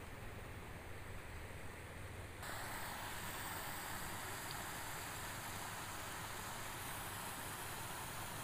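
Water rushing in a steady small cascade through a breach in a mud embankment, a continuous even rush that comes in suddenly about two seconds in; before it, only quieter outdoor noise with a low hum.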